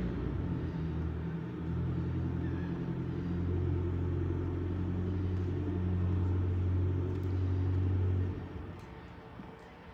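A boat engine idling: a low, steady rumble that falls away sharply about eight seconds in.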